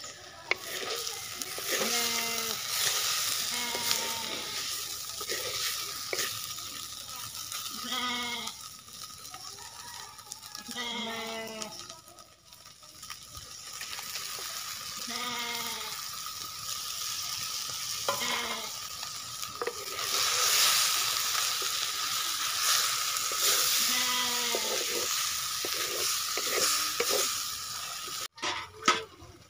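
Fish pieces sizzling as they fry in a clay pot over a wood fire, stirred with a wooden spatula; the sizzle is louder in the second half. Livestock bleat in short calls about ten times through it.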